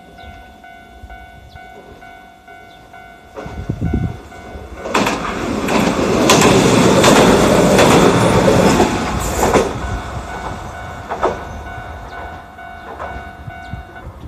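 Hiroden tram passing over a level crossing, its wheels clacking in a run over the rail joints, loudest in the middle. The crossing's electronic warning bell rings steadily and stops just before the end.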